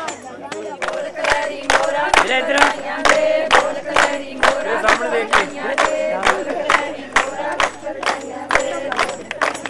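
A group of women singing together over steady hand clapping, about two claps a second.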